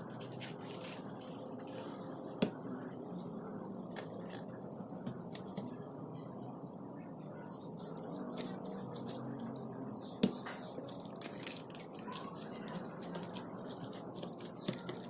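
Silicone pastry brush dabbing egg white onto a dried fish fillet on a seaweed sheet, making many small wet, sticky clicks, with two sharper clicks about two and a half and ten seconds in, over steady low background noise.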